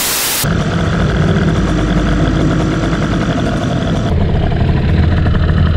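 A brief burst of TV static noise, then a small two-stroke scooter engine idling steadily with a fast, even pulse.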